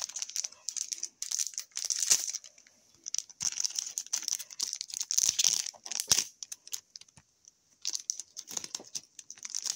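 Hockey card packs and cards being handled: plastic wrappers crinkling and cards rustling against each other, in irregular short bursts with brief pauses.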